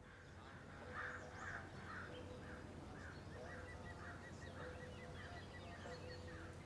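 Birds calling outdoors: a run of repeated calls about two a second, then quicker short chirps, with other thinner chirps over a low background.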